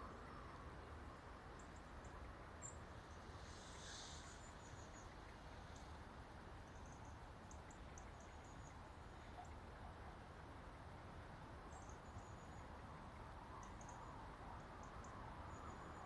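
Near-silent riverside ambience: a faint steady hiss with scattered short, thin, high-pitched chirps from small birds calling at a distance, one a little louder about four seconds in.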